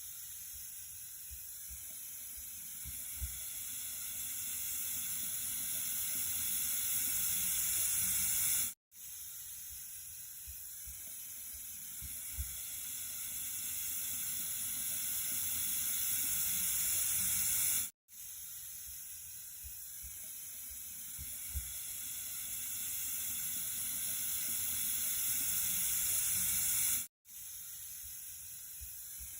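Water running in a steady hissing stream, swelling gradually over a recording that repeats about every nine seconds, with a split-second dropout between repeats.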